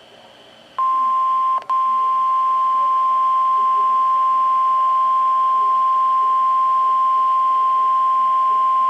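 NOAA Weather Radio warning alarm tone, a steady 1050 Hz beep, played through a Midland WR120 weather radio's speaker as the weekly test of the alarm. It starts after a moment of faint radio hiss and breaks off very briefly about a second after it begins.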